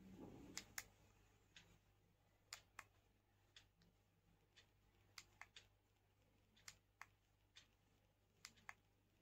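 About fifteen faint, sharp clicks at irregular intervals: the button on the WeCool S4 selfie stick's built-in LED light being pressed to cycle through its colours.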